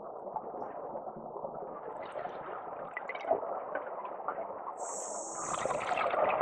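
Scuba diver's breathing through a regulator, heard underwater: a steady crackle of bubbles and gurgling, then a brief hiss about five seconds in and a louder surge of bubbles near the end.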